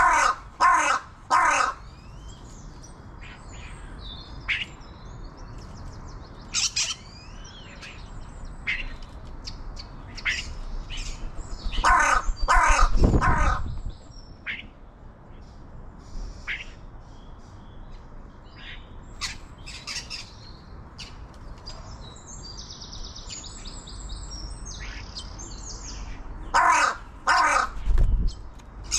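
Crow-family bird cawing in three bouts of two or three harsh calls, just after the start, about halfway through and near the end, with smaller birds chirping between the bouts.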